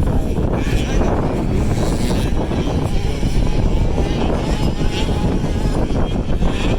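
Two-stroke 65cc youth motocross bikes racing, their engines buzzing and wavering in pitch over a heavy low rumble.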